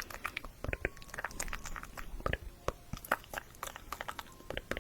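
Close-miked ASMR mouth sounds: irregular wet clicks and smacks of tongue and lips, several a second.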